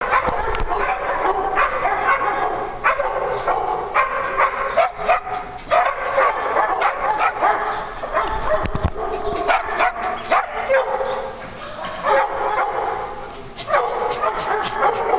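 Small dogs barking and yipping over and over, the short high calls overlapping with hardly a pause, with a brief lull shortly before the end.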